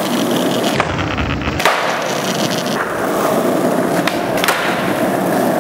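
Skateboard wheels rolling steadily on a smooth car-park floor. A sharp clack about a second and a half in and two more clacks a little after four seconds are the board being popped and landed on kickflips.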